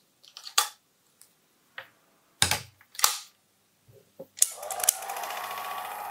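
A few knocks as a reel-to-reel film projector is handled and set down, then a switch clicks about four seconds in and the projector starts running with a steady whir and a fast clatter of its film mechanism.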